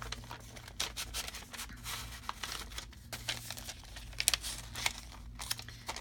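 Paper rustling and crinkling in the hands: a printed paper insert being folded and slid into a kraft paper bag pocket, with many irregular short crackles.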